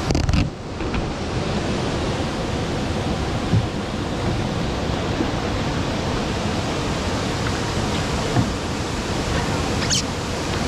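Steady rushing of Paresseux Falls, a wide waterfall over rock ledges, heard from the river below it. There is a low bump at the very start and a short click about ten seconds in.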